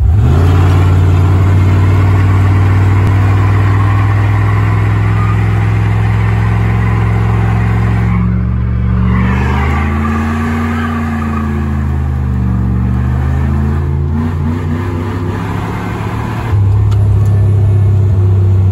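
2001 Dodge Ram 1500's 318 Magnum (5.2 L) V8 pulling hard under heavy throttle, heard from inside the cab, being run hard to blow out carbon deposits. Its pitch holds steady at first, wavers up and down in the middle as the throttle eases, and it jumps louder again near the end when the throttle opens.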